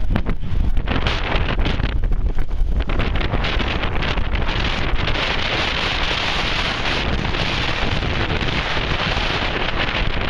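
Strong wind buffeting the microphone in a steady low rumble, with a louder hissing stretch from about four seconds in.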